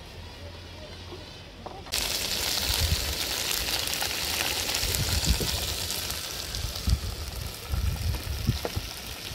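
Meat frying in a pan on a two-burner camp stove, a steady sizzle that starts suddenly about two seconds in and slowly fades, with occasional low thumps underneath.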